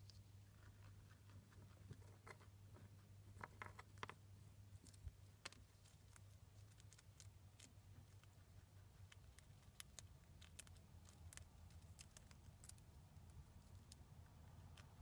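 Chinchilla gnawing and crunching a peanut: faint, irregular sharp nibbling clicks, bunched more closely about three and a half to four seconds in.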